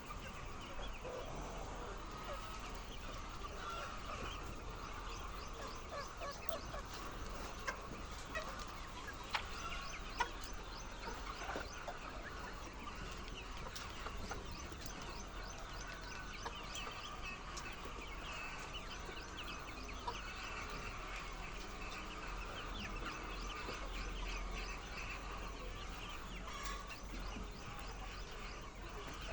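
A large flock of laying hens clucking and chattering continuously, with a few sharp clicks along the way.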